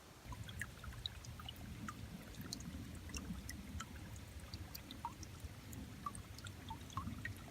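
Faint trickling of spring water over a low, uneven rumble, with scattered tiny ticks.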